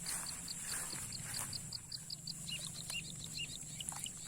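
A bird chirping: a fast run of short high chirps, about five a second, then slower, lower chirps in the second half, over a steady high-pitched hiss.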